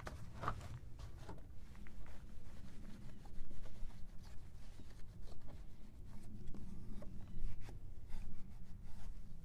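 Microfiber cloth rubbing and wiping across a plastic car headlight lens wet with glass cleaner, in irregular short strokes.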